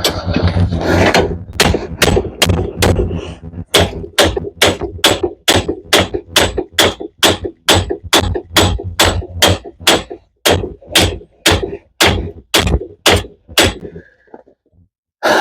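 Steady, rhythmic hammer blows on metal, about two and a half strikes a second for some fourteen seconds, knocking at the stuck front wheel bearing hub of a Cadillac DTS.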